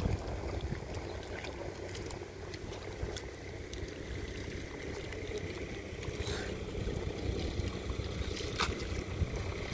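Water and mud sloshing, with small splashes and clicks, as rice seedlings are pushed by hand into a flooded paddy field, over a steady low rumble of wind on the microphone.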